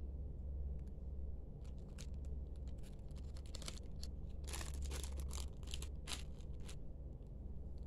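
Small fabric hand flags on plastic sticks being handled and laid down: a run of rustles, crinkles and light taps, thickest about halfway through, over a low steady hum.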